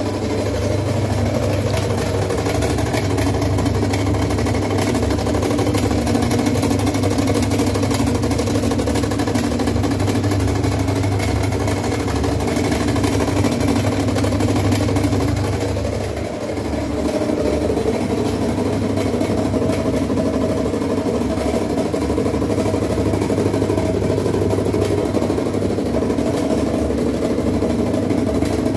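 Whirlpool top-load washing machine running with a loud, steady mechanical drone: a strong low hum with several steady tones above it, easing briefly a little past halfway. The loudness is the abnormal noise the machine is making.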